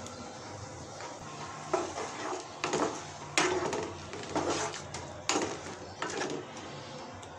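Wooden spatula stirring sliced onions and chillies in water in a non-stick pan, scraping and knocking against the pan in a run of sharp clacks.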